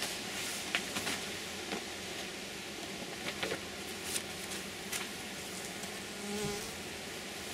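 Honeybees buzzing around an opened hive, one passing close about six and a half seconds in. Over it, several short crinkles of a plastic sheet being peeled off the top of the frames.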